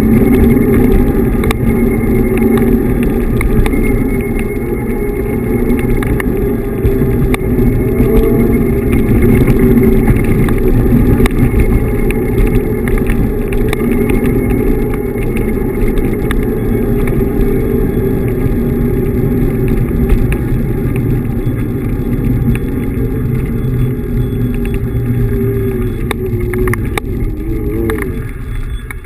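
Wind buffeting the microphone and tyre rumble while riding a Xiaomi M365 Pro electric scooter along a paved road, with a faint whine that glides up and down in pitch. The noise dies down near the end as the scooter slows to a stop.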